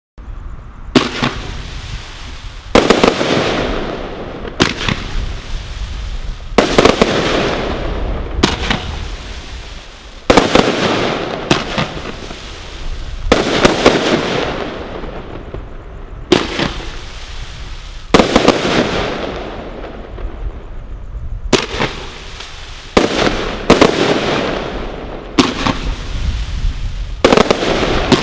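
Brothers Pyrotechnics Viral Spiral firework cake, a category 2 combination Roman candle barrage, firing: a string of sharp shots about one every two seconds, each followed by a noisy tail of a second or so.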